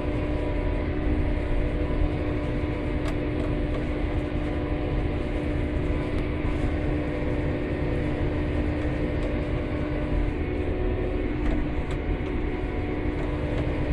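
Steady drone of a vehicle engine heard from inside the cab while driving in heavy rain, with a few faint ticks.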